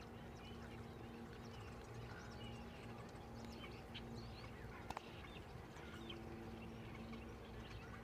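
A flock of small birds roosting in a palm tree, chirping faintly and sporadically, with many short calls scattered throughout. A steady low hum runs underneath, and there is a single sharp click about five seconds in.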